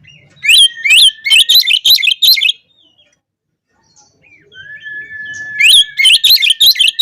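Oriental magpie-robin (kacer) singing loudly: a long, steady whistle with a fast run of sharp, ringing notes over it, about five a second, given twice with a short silence between.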